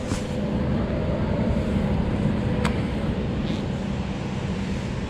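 Steady low rumble of interstate traffic, with two sharp light clicks, one just after the start and one about halfway through.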